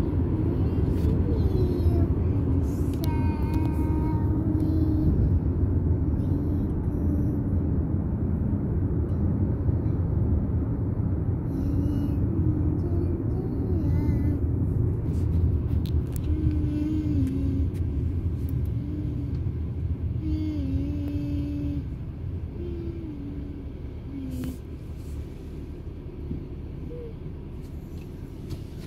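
Steady low road and engine rumble inside a moving car, growing quieter near the end, with a faint voice sounding now and then over it.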